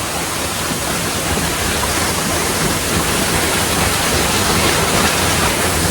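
Steady rush of water falling at a waterfall, an even unbroken noise.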